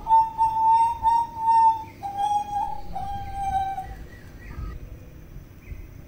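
Hooded butcherbird singing a run of clear, level whistled notes. The notes are strong for about four seconds, then turn softer and sparser near the end.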